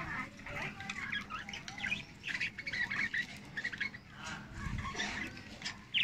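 Several budgerigars chattering: a busy, unbroken run of short high chirps and squawks.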